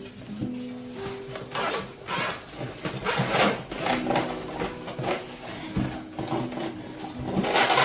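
Cardboard packaging being handled: a flat cardboard insert from a stand mixer box scraping and rustling in repeated bursts, loudest about three seconds in and near the end. A soft background tune of held notes plays underneath.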